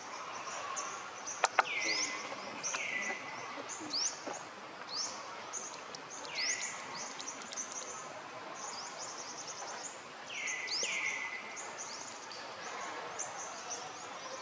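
Forest birds calling: many short, high chirps, with several calls that slide down in pitch and repeat every few seconds. A couple of sharp clicks come about a second and a half in.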